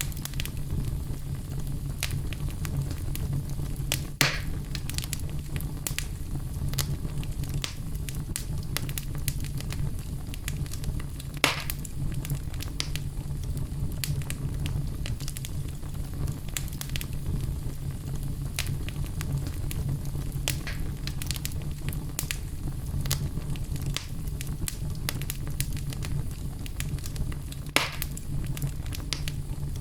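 Fireplace fire crackling: a steady low rumble and hiss with frequent small crackles and three louder pops.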